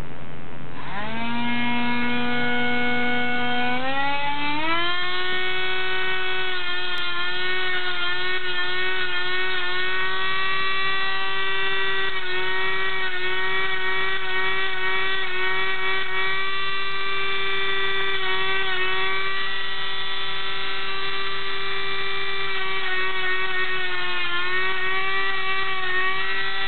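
Dremel rotary tool grinding a dog's nails: a steady motor whine that starts about a second in and speeds up to a higher pitch about four seconds in, then holds with slight wavers in pitch.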